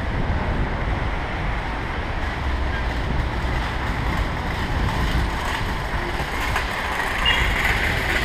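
City street traffic heard from a bicycle-mounted camera while riding: a steady low rumble under a continuous hiss of passing cars and scooters.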